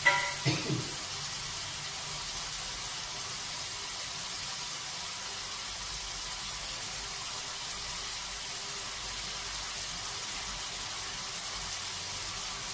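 Chili and tomato sauce sizzling steadily in an aluminium wok on a gas stove, with a short knock at the very start.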